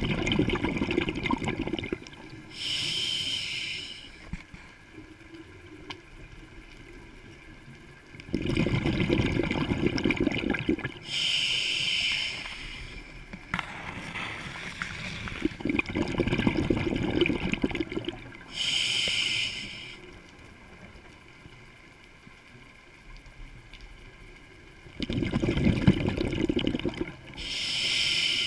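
A scuba diver breathing through a regulator underwater: a bubbling rush of exhaled air, then a shorter hiss of inhalation through the regulator, repeating about four times.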